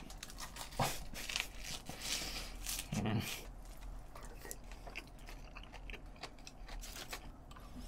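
Close-up mouth sounds of eating bibim-myeon noodles: slurping them in and chewing, with many small wet smacking clicks. A short low vocal murmur comes about three seconds in.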